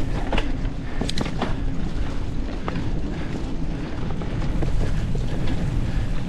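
Wind buffeting the microphone over the steady rumble of a mountain bike rolling along a dirt trail, with a few sharp clicks and rattles from the bike over bumps, several of them about a second in.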